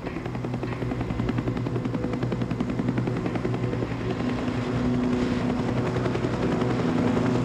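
Light helicopter lifting off and flying past: a rapid, even chop of the main rotor over a steady engine hum, growing a little louder.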